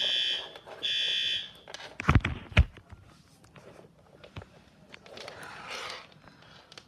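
Fire alarm horn sounding during a test: two harsh, steady-pitched blasts, the second a little longer, then two sharp knocks about two seconds in and quiet after.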